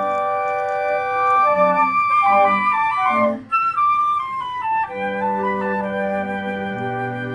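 Flute ensemble playing: several flutes holding chords that change step by step, a brief pause about three and a half seconds in, then the music resumes with low held notes coming in underneath.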